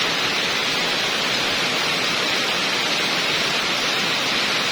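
Heavy rain falling hard and steadily, an even hiss with no breaks.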